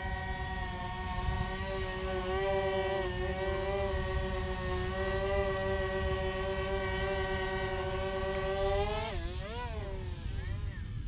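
XK X520 RC plane's electric motors and propellers whining at a steady pitch while it hovers nose-up. About nine seconds in, the pitch rises and swings up and down as it tips into forward flight, then the whine drops away as it flies off.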